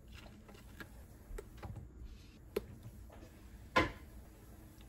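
Small knife slicing an eggplant held in the hand, and the pieces set into a wooden steamer box: scattered soft cuts and light knocks, the loudest a little before four seconds in.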